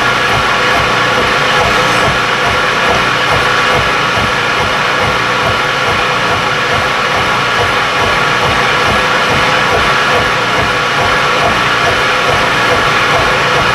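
Vertical milling machine running under load, an end mill cutting a slot in a steel block, with a steady rhythmic low pulsing under a constant mechanical whine.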